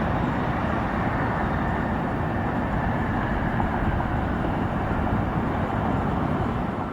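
Steady jet aircraft engine noise, an even rush with no change in level.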